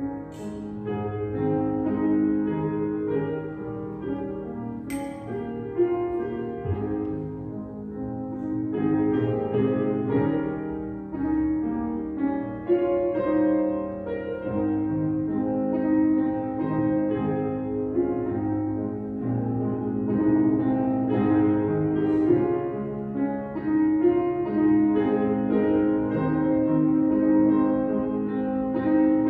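Slow, quiet instrumental music on a keyboard instrument, with held chords that change every second or two. Two brief clicks come through, one just after the start and one about five seconds in.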